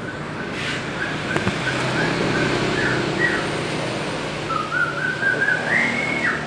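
Short, high whistling notes repeated about twice a second over a steady low hum, climbing higher in pitch near the end.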